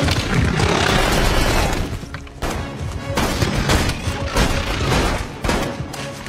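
Film soundtrack: a dense burst of gunfire from characters shooting at alien hounds, then a few separate shots, over a dramatic music score.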